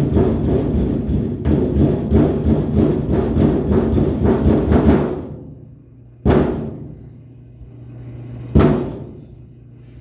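A toddler's fists drumming fast on the sheet-metal front panel of a washing machine, a rapid flurry of hollow, drum-like thuds for about five seconds. Then two single heavier thumps a couple of seconds apart, over a steady low hum.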